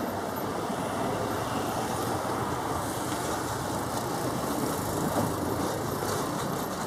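Twin turboprop engines of a Beechcraft King Air B200GT on final approach to land: a steady drone that holds even throughout.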